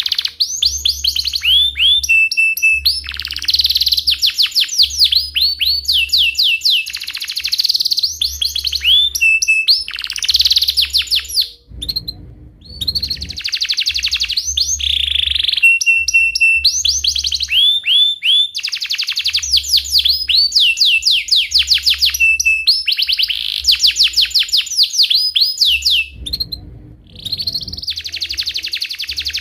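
Domestic canary singing a long, loud song of rolling trills and rapid repeated chirps, with two brief pauses.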